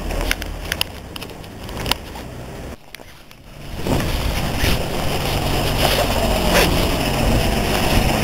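Winter street ambience picked up on a handheld camera: a steady low rumble with a few sharp clicks in the first two seconds. The sound drops away for about a second around three seconds in, then the rumble returns louder.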